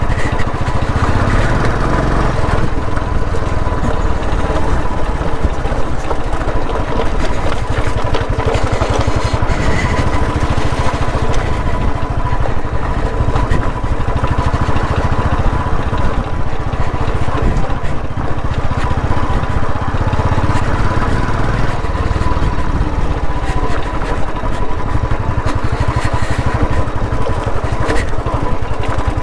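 Royal Enfield Classic 350's air-cooled single-cylinder engine running steadily as the motorcycle is ridden over a rough, stony dirt track.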